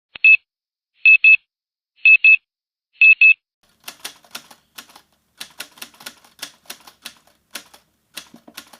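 Short high electronic beeps, most of them in pairs, about one a second. From about four seconds in they give way to a quick, uneven run of typewriter key clicks.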